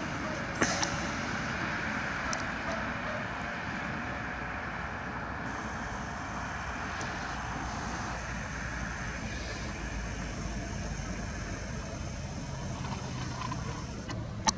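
Steady hum of road traffic with no speech over it. There is a sharp click about half a second in and another at the end.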